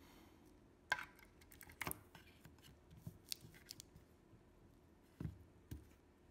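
Scattered light clicks and knocks of a plastic cordless-drill battery case being handled as a pack of 18650 lithium-ion cells with its BMS board is set into it.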